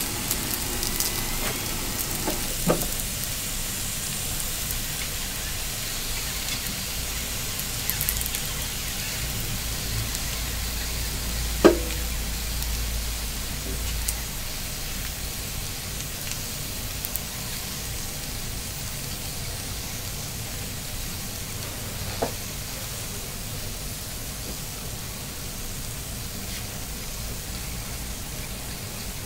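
Mochi rice cakes sizzling as they toast in a nonstick frying pan: a steady hiss, broken by three short sharp ticks, the loudest near the middle.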